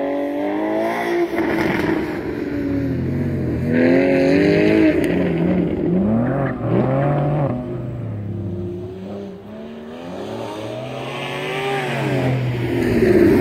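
Porsche 996 Carrera 4S flat-six engine revving up and down as the car works through an autocross course, pitch rising and falling again and again, held mostly in first gear. Tire squeal in the turns.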